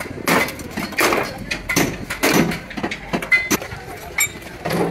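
Irregular knocks and clanks of steel truck-body panels being struck and handled, about one every half second to a second, some with a short metallic ring.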